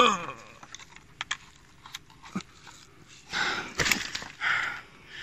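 A person breathing hard in short puffs and gasps while straining to lift a heavy carp in a weigh sling up to the scale, after a few faint clicks.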